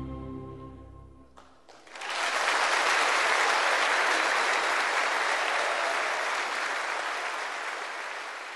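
The orchestra's last held chord fades out, and about two seconds in an audience breaks into steady applause that slowly dies down.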